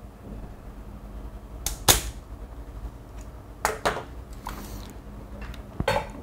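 Spring-loaded desoldering pump (solder sucker) snapping as it fires to suck molten solder off a relay's pins: three sharp snaps about two seconds apart, the loudest about two seconds in.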